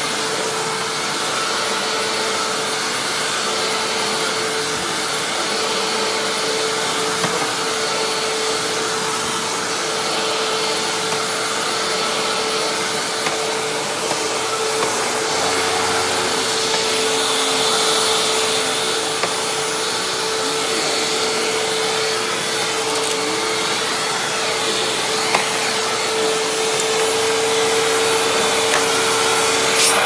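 Hoover WindTunnel Lite upright vacuum cleaner running steadily on carpet, its motor giving a constant whine over the rush of air. Its brushroll belt is shot.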